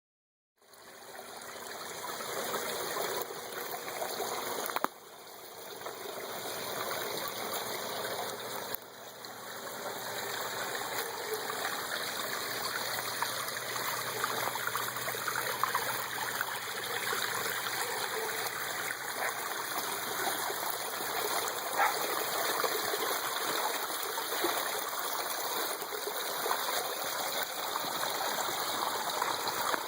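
Water spilling steadily down small cascading waterfalls between backyard fish ponds, fed by a recirculating submersible pump, a continuous splashing and trickling. The level dips briefly about five and nine seconds in.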